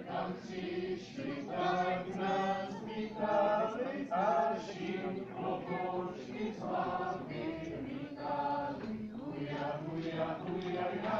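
A group of voices singing a folk song in short phrases, as for a round dance.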